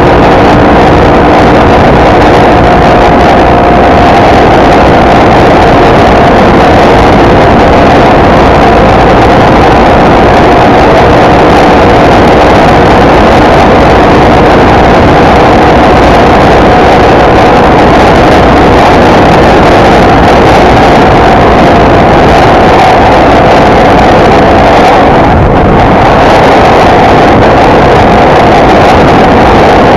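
Motorcycle engine running steadily at cruising speed, mixed with wind and road rush, recorded very loud; the engine note eases briefly near the end.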